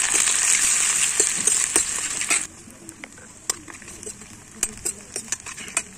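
Chopped onions sizzling loudly in hot oil in an iron kadhai. The sizzle drops away suddenly about two and a half seconds in, leaving a metal spoon scraping and clicking against the pan as the onions are stirred.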